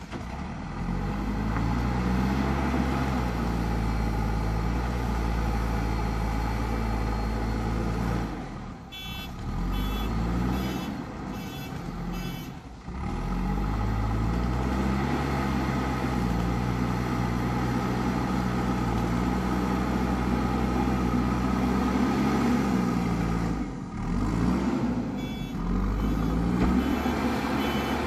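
JCB 3DX Super backhoe loader's diesel engine working under load as it pushes soil with the front bucket, rising in pitch as it revs up. Twice the engine eases off, about a third of the way in and again near the end, and the reversing alarm beeps steadily.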